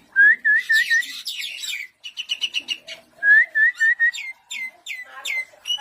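Captive mynas (jalak) calling with whistled notes. There are two runs of four short rising whistles, a fast chatter of clipped notes between them, and then a string of falling whistles.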